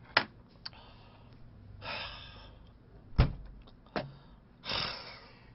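A man's audible breaths, two soft hissy intakes or sighs, between sentences. A few sharp clicks and a knock about three seconds in break in.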